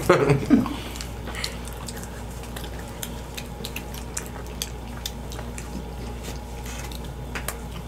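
People chewing and eating pizza: scattered small clicks and smacks of chewing and of handling slices on plates, over a low steady hum.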